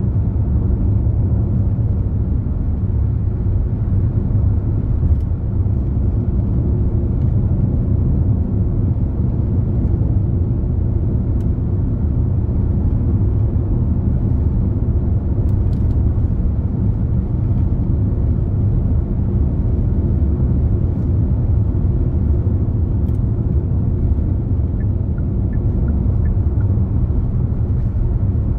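Steady low rumble of a car driving along a highway: engine and tyre road noise, unbroken, with a few faint ticks.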